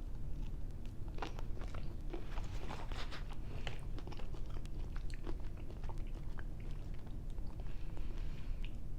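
Close-miked eating of cocktail shrimp: biting and chewing, with many small wet mouth clicks and smacks, over a steady low hum.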